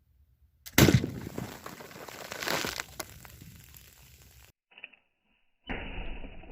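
A flintlock musket firing a .50 calibre lead ball on 80 grains of black powder. A very loud shot comes about a second in, followed by a long noisy tail as the soda cans it hits burst. After a sudden break in the sound, a second, duller stretch of noise follows.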